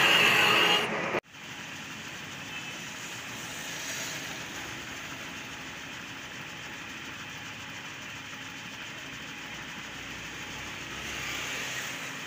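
Lathe cutting a thread into a metal shaft: a loud scraping with a steady high ring, which cuts off about a second in. After that the lathe runs on steadily and more quietly.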